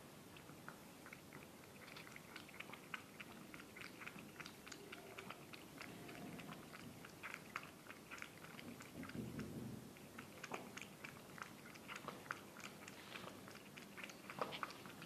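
A cat lapping milk from a bowl: quiet, wet tongue clicks at about three or four a second, from a thirsty, hungry stray drinking eagerly.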